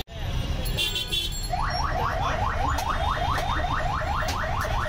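Electronic alarm or siren sounding a fast run of rising chirps, about six a second, starting about a second and a half in, over a low rumble of street traffic.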